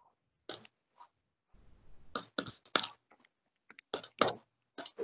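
Scattered faint clicks of a handheld calculator's keys being pressed.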